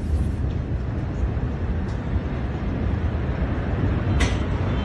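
Steady low rumbling noise, with a brief scrape or crackle about four seconds in.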